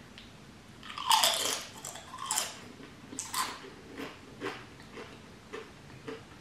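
A person eating close to the microphone: a few louder bites in the first few seconds, then steady chewing about twice a second.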